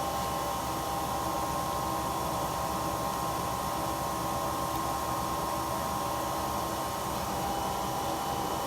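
Fanuc Robodrill D21LiA5 CNC drill/tap machine running its program, a steady motor whine at one constant pitch over an even mechanical hum.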